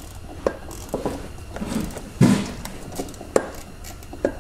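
Hand ratchet and reverse-torque socket working an engine-mount bolt loose: scattered metallic clicks and knocks, with a louder clunk about two seconds in. The bolt binds because the supported engine drops a little as it comes out.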